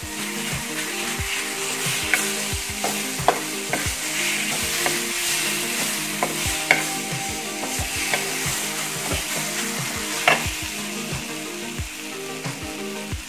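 Spice-and-onion masala sizzling as it fries in a flat pan, stirred and scraped with a metal spoon, with sharp clicks where the spoon knocks the pan. A steady low hum runs underneath.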